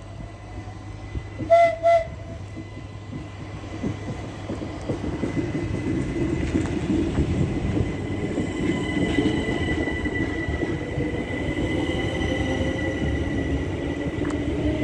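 Class 377 Electrostar electric multiple unit sounding two short horn blasts about a second and a half in. It then runs in alongside the platform with a growing rumble and motor whine, one whine rising in pitch near the end.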